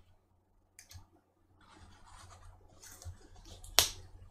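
Plastic pry tool scraping and prying under a MacBook Pro Retina battery cell to lift it off adhesive softened with isopropyl alcohol. Faint scratching builds after a quiet start, with a small click and then a sharp snap near the end.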